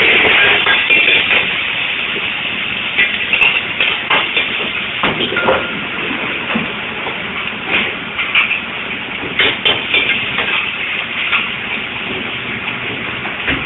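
Clams being stir-fried in a wok over a strong gas burner: a steady hissing rush, with irregular sharp clanks and rattles of metal and shells in the wok.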